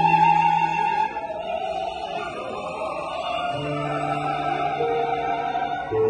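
Mixed church choir of men and women singing in harmony, holding long chords. The sound drops back about a second in and swells again near the end.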